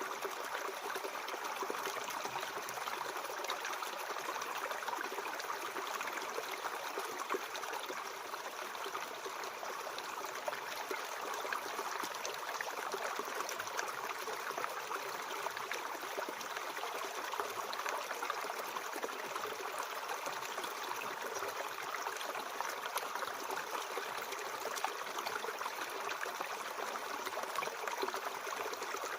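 Mountain stream flowing over rocks, a steady rushing and trickling of water that neither rises nor falls.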